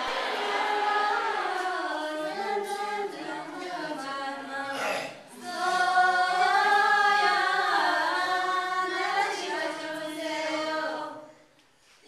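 A group of women singing a song together without instruments. There is a short break about five seconds in, and the singing stops shortly before the end.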